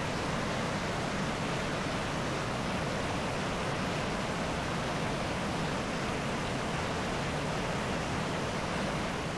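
White-water cascades of the Tygart River rushing over rocks, a steady, unbroken noise of water.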